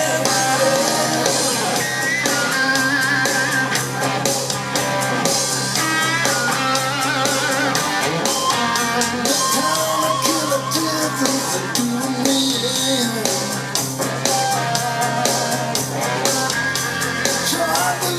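Rock song with singing, guitar and drums, played back through a Klein & Hummel Telewatt VS 56 tube amplifier and DIY loudspeakers.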